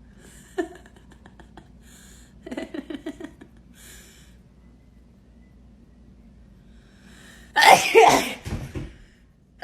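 A person sneezes once, loudly, a few seconds before the end, set off by a nasal swab for a Covid test. The sneeze is led up to by a few short, quieter catches of breath.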